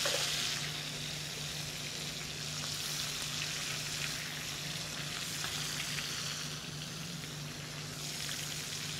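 Raw shrimp sizzling in a skillet of hot butter and canola oil as they are laid into the pan. The sizzle is steady, a little louder in the first second.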